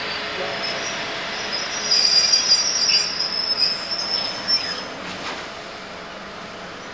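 ER2 electric multiple unit braking to a stop: a steady running noise, then about two seconds in a loud high-pitched wheel-and-brake squeal that wavers for about three seconds and dies away as the train halts.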